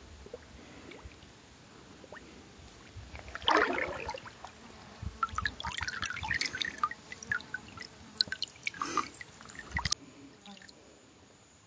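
Water splashing and dripping in short, irregular spatters. It starts about three and a half seconds in with a louder splash and cuts off abruptly near the end.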